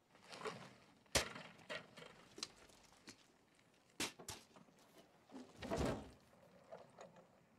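Quiet ambience broken by a few sharp knocks: one about a second in and two close together about four seconds in, with a softer swell of sound near the end.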